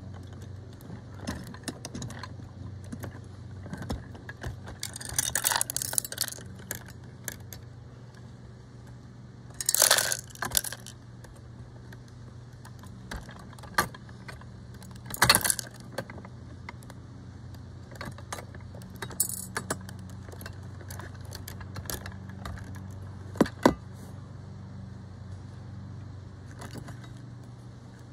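Small clicks and metallic rattles of a die-cast model front-loader garbage truck being worked by hand, its lift arms and toy dumpster clinking, with several louder rattles scattered through. A steady low hum sits underneath.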